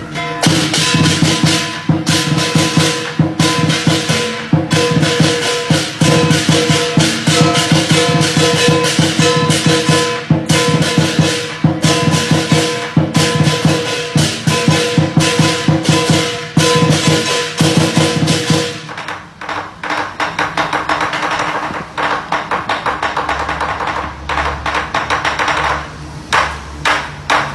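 Lion dance percussion: a drum beaten fast, with cymbals crashing and a gong ringing. About two-thirds of the way through, the heavy beating drops back to lighter, quicker strikes. It comes back in full near the end.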